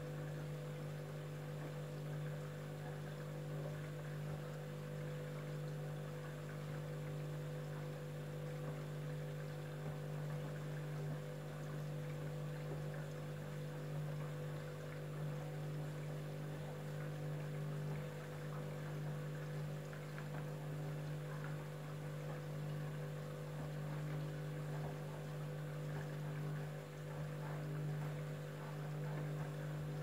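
Candy front-loading washing machine in its wash phase: the drum motor hums steadily while soapy water and laundry slosh in the turning drum.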